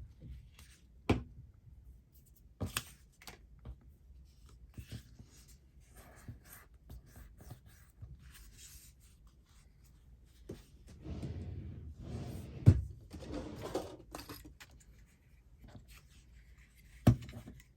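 Paper being handled, glued and folded on a tabletop: scattered light taps and rustles, a spell of paper rustling and creasing partway through, and two sharper knocks, one in the middle and one near the end.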